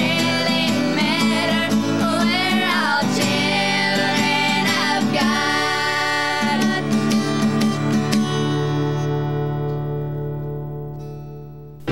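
Four girls singing with a strummed acoustic guitar; about eight seconds in the singing ends and the final chord rings on, fading away.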